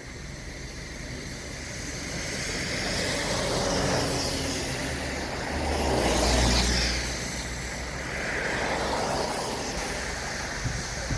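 City street traffic: a steady hum of engines and tyres, with cars passing in swells that rise and fall away, the loudest pass about six seconds in.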